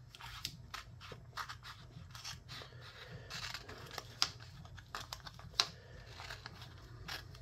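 Scissors snipping through a decal sheet laid flat on a table: a run of quick, irregular snips and crinkles of the sheet, with two sharper clicks about four and five and a half seconds in.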